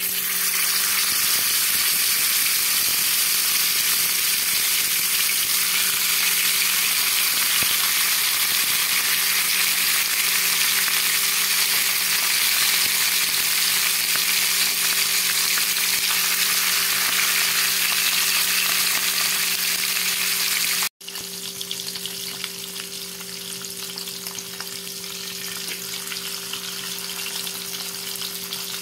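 Masala-coated fish shallow-frying in hot oil on a cast-iron tawa: a loud, steady sizzle that starts as the fish goes into the oil. After a sudden break about two-thirds of the way through, the sizzle carries on quieter as the fish cook on.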